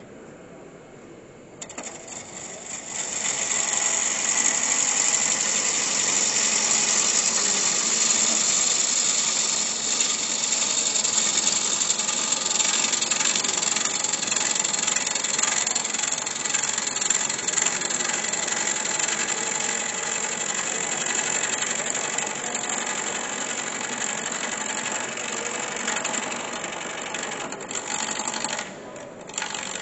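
A woodturning gouge cutting into a wooden blank spinning on a lathe, a steady noisy cut with shavings thrown off. It starts about a second and a half in and builds to full loudness within a couple of seconds. The cut lets up briefly twice near the end.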